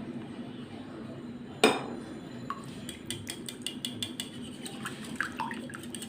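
An egg is cracked against the mixing bowl with one sharp knock. From about halfway on, a utensil clicks quickly against the bowl as the egg is beaten into the buttermilk and melted butter.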